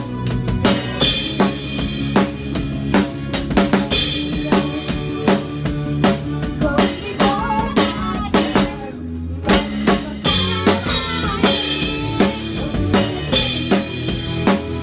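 Live band playing, heard from right beside the drum kit: loud close drums with a steady beat of kick and snare hits and cymbal wash over the keyboards. The cymbals drop out briefly about nine seconds in, then come back.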